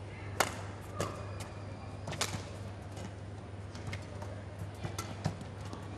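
Badminton rally: sharp racket hits on the shuttlecock, irregularly spaced about a second apart, over a low steady hum.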